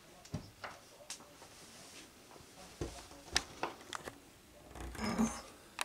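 Scattered light clicks and knocks, with a brief rustle about five seconds in, from curtain-rod hardware being handled and fitted at the window frame.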